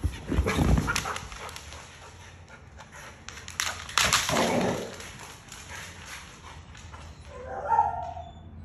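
Dogs moving about with thumps and rustling, then a dog gives a few short, high yips near the end.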